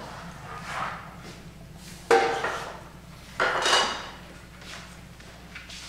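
MDF boards being handled on a table saw: a few separate knocks and clatters as pieces are set down and moved against each other, the sharpest about two seconds in.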